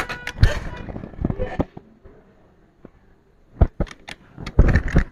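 Small tools and parts handled on a workbench during hand repair of an electronics board: scattered clicks and knocks in the first second and a half, a quiet gap, then a few more knocks near the end.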